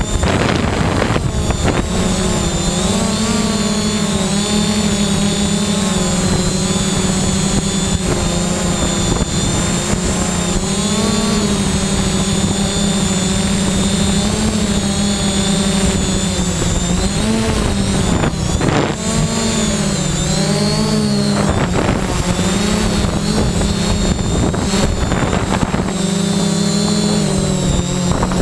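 3DR Y6 hexacopter drone's six electric motors and propellers running in flight, a steady buzzing drone whose pitch wavers a little up and down. Brief rushes of noise cut across it a few times.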